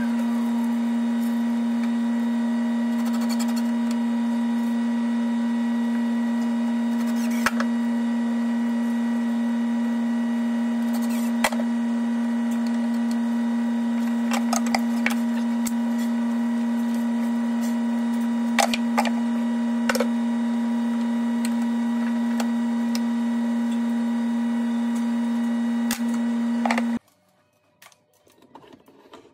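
A loud, steady hum at one constant pitch, with scattered sharp clicks and knocks; the hum cuts off abruptly near the end.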